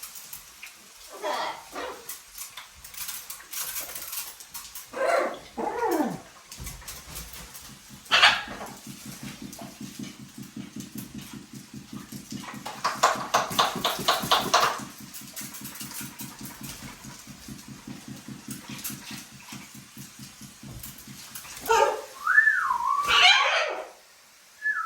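Pet parrots calling during a shower: short squawks and yelps, then a long stretch of rapid, evenly pulsed chattering that swells loudest partway through. Near the end comes a wavering whistle.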